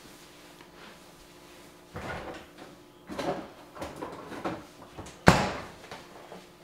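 Several short rustling and handling noises, then one sharp bang of a door being shut about five seconds in.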